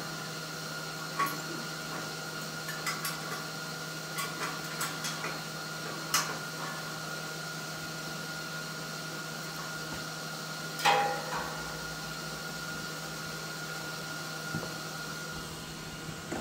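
Scattered metal taps and clanks as the steel implement stand and tools are handled, with one louder clank that rings briefly about eleven seconds in, over a steady background hum.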